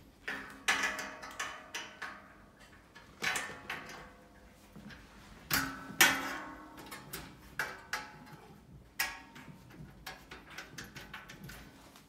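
Knocks and clanks on a metal typewriter table's frame and top while its screws are tightened with a screwdriver, the louder hits ringing briefly. A run of light quick ticks near the end.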